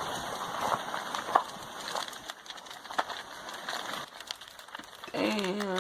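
Irregular crackling and snapping, with scattered sharp pops: a wooden house burning and breaking up as a lava flow overruns it. A drawn-out voice starts near the end.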